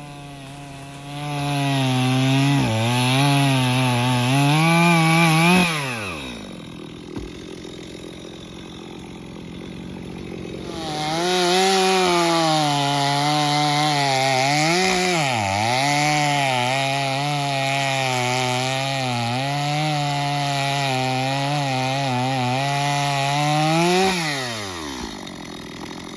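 Two-stroke chainsaw cutting a stump close to the ground: two long spells at full throttle whose pitch wavers and dips as the chain bites. It drops back to idle about six seconds in, revs up again around eleven seconds, and falls off again near the end.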